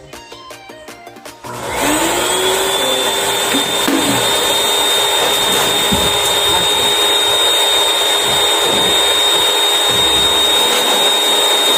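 Background music, then about a second and a half in a 2200 W pet dryer blower switches on and runs loud and steady: a strong rush of air with a high motor whine that rises briefly as the motor spins up, then holds.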